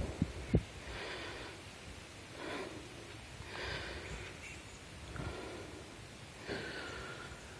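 A person breathing heavily close to the microphone: about five audible breaths, roughly one every second and a half, with a couple of sharp handling clicks near the start.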